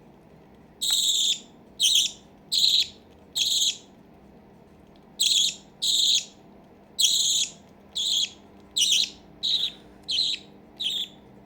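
Baby budgie's repeated short, high food-begging calls, about fourteen in all: a run of five, a pause of about a second and a half, then a quicker run of nine.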